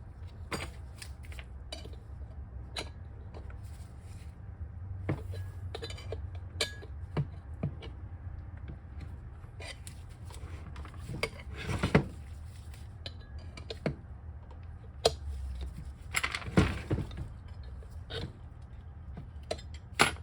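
Small steel pry bars clinking, knocking and scraping against the electric scooter hub motor's metal casing as its side cover is pried apart: scattered sharp clicks, with two louder bursts of clanking about eleven and sixteen seconds in.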